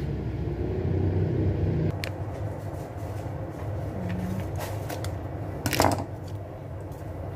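Steady low hum, heavier for the first two seconds, with one sharp knock about six seconds in as a small hand tool is set down on the countertop.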